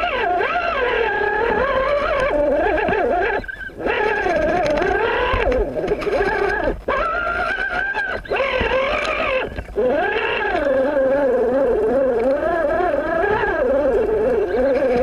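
RC rock crawler's electric motor and gearbox whining, the pitch wavering up and down as the throttle and load change on the climb. It cuts out briefly three times.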